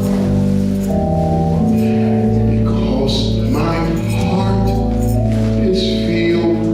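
Live church music: long held chords with a steady bass line, and a voice singing over them in places.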